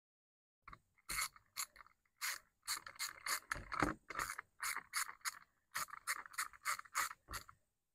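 Hand ratchet clicking in quick short strokes, about three a second, as it tightens the 8 mm nut that holds the blade on a 12-inch electric fan's motor shaft; it starts about a second in.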